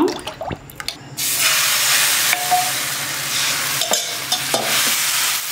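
Thin neer dosa rice batter hitting a hot nonstick pan and sizzling loudly, starting suddenly about a second in after a few light clicks of the ladle against the steel batter vessel.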